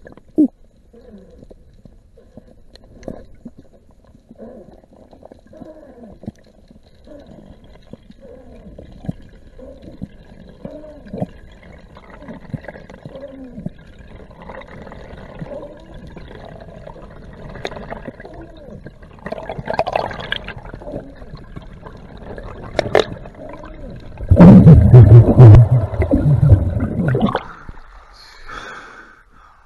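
Muffled underwater sound from a camera on a freediver's ascent along a dive line: faint gurgles and scattered knocks. Late on comes a loud rush of water lasting about three seconds as the diver breaks the surface.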